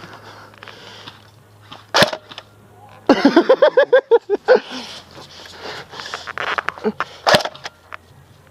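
Airsoft guns firing: two sharp single shots about five seconds apart, a few fainter clicks between them, and a loud, quick stuttering run of about ten pitched pulses lasting about a second and a half after the first shot.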